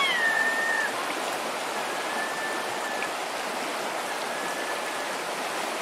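Fast, shallow river water rushing over rocks, a steady rush throughout. A high, thin whistle sounds at the start, dipping slightly and holding for about a second, and two fainter long whistles come later.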